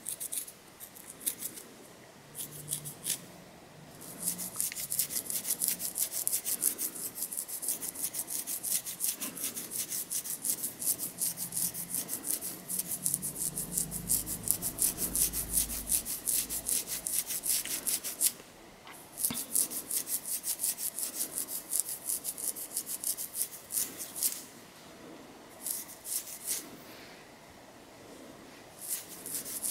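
Long fingernails scratching through hair on a dandruff-flaked scalp. The strokes are fast and dry: a few at first, then a quick, steady run with a brief break about two-thirds through, and short bursts with pauses near the end. A low rumble comes in around the middle.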